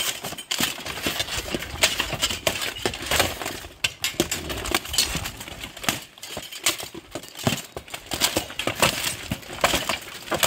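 Steel plate armor clanking and scraping as two armored fighters grapple in a clinch, with frequent irregular metallic clinks and knocks.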